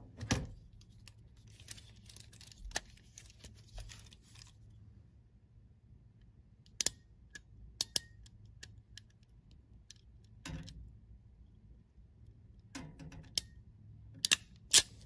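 A hand wire stripper clicks and snips as it is worked on thin control-cable conductors, with light rustling of the wires in the first few seconds. A few sharp clicks come scattered through, and the loudest come near the end.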